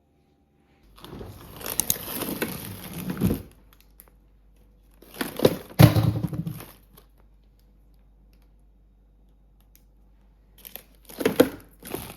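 Crinkling and rustling handling noise in three bursts of a second or two, like packaging being crumpled or torn.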